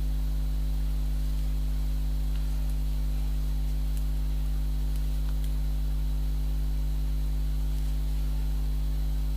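Steady electrical mains hum with its overtones, with a few faint ticks.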